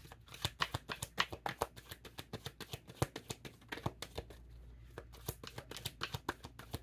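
A deck of tarot cards being shuffled by hand: a quick, irregular run of light card clicks and slaps, several a second.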